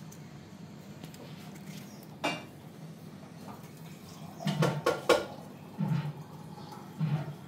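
Small kitchen knife clinking against a ceramic plate while a tomato is cut by hand: a few short sharp clicks, a cluster of them about halfway through, over a steady low hum.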